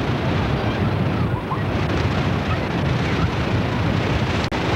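Wind buffeting the camcorder microphone over the steady wash of breaking surf, with faint shouts of children in the distance.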